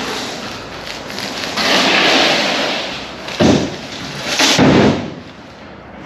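Heavy parts of a packed 4-post car lift being handled: a longer scraping noise, then two loud thuds about a second apart.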